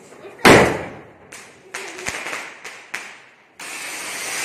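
A loud firecracker bang about half a second in, followed by several smaller sharp cracks. Then, about three and a half seconds in, a steady hiss sets in: an anar (flower pot) ground fountain spraying sparks.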